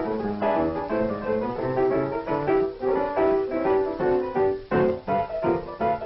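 Solo piano accompaniment playing a quick succession of notes.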